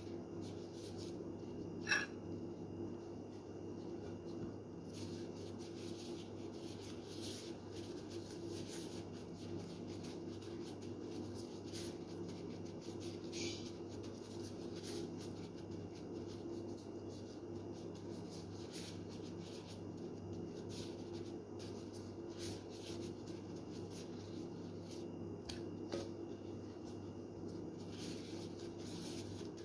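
Light kitchen handling sounds, scattered faint scrapes and clicks of food being worked with utensils, over a steady low hum, with one sharp click about two seconds in.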